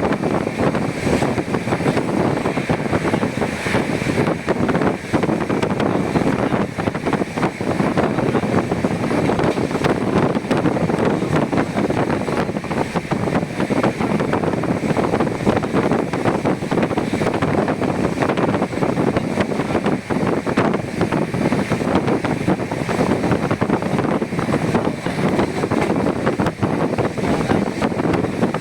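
Steady running noise of a moving train heard from on board: a continuous rumble with dense rattling and clatter, and wind on the microphone.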